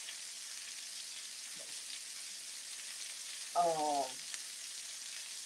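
Steak and peppers searing in a hot pan: a steady frying sizzle. A brief sound of a woman's voice cuts in about two-thirds of the way through.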